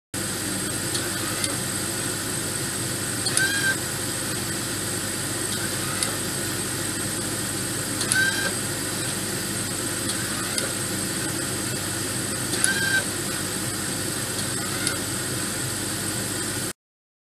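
Small yellow plastic gear motor whirring briefly about every two seconds as it swings the laser cutter's spotting-laser mirror in and out of the beam path; every other whir is louder. A steady mechanical hum runs underneath.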